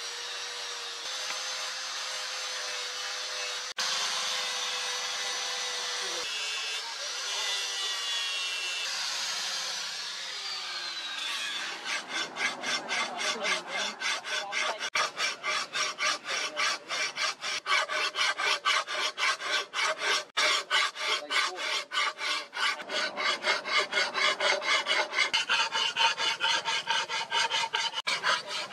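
Angle grinder with a sanding disc running against the steel of a leaf-spring cleaver blade, its whine falling as it winds down about ten seconds in. Then a flat hand file rasps along the blade in quick, even strokes.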